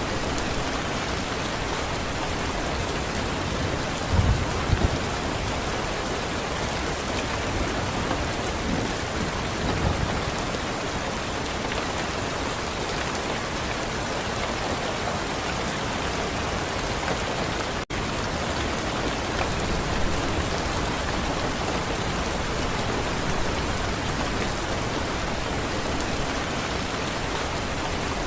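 Steady rain falling in an even hiss, with a few short low rumbles like distant thunder about four, ten and twenty seconds in. The sound drops out for an instant about two-thirds of the way through.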